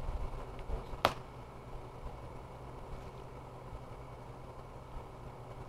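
Tent's cardboard box being handled and opened, with one sharp click about a second in over a steady low background.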